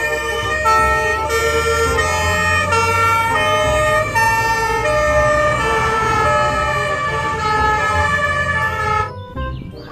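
German fire engines' two-tone sirens sounding as a convoy passes, the pitch stepping back and forth between two notes over a low engine rumble. The sirens stop about nine seconds in.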